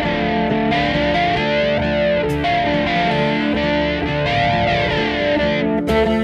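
Electric guitar music with effects, played against a backing track in D minor, with a repeating whooshing sweep through the sound and a busier section starting near the end.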